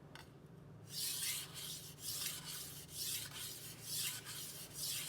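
Kitchen knife blade drawn in whole-edge strokes across a wet 400-grit whetstone: about five gritty scraping strokes, roughly one a second, starting about a second in.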